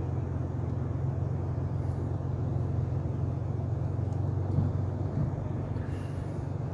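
Car engine and road noise heard from inside the cabin while driving: a steady low drone over an even hiss.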